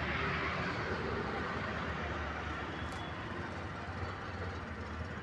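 Steady background street noise with traffic, getting slightly quieter toward the end.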